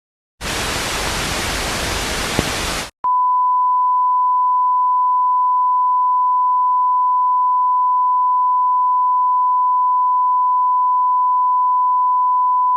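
A burst of hissing TV static with one click in it cuts off sharply after about two and a half seconds. It is followed by a steady pure test tone that holds unchanged for about ten seconds and is louder than the static.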